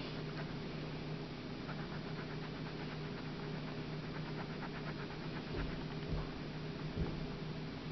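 Coloured pencil scratching on sketchbook paper in quick short shading strokes, over a steady low hum. Near the end come three dull low bumps, the last the loudest.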